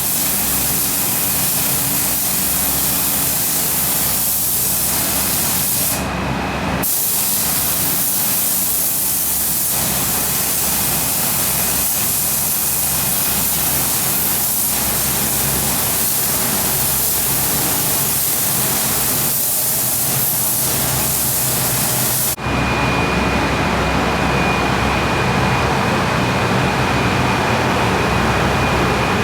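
Loud high-pressure spray hissing over a running machine, broken off briefly about six seconds in. It stops about three quarters of the way through, leaving the machine running with a steady high whine.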